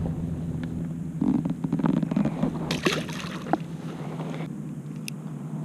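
A smallmouth bass is let go over the side of a kayak: water splashes and sloshes between about one and three seconds in. Short knocks and clicks of gear being handled in the kayak come with it.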